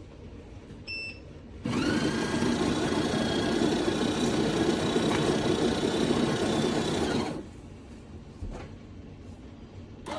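Café Affetto automatic espresso machine beeping once, then its motor starting up, running steadily for about six seconds and cutting off.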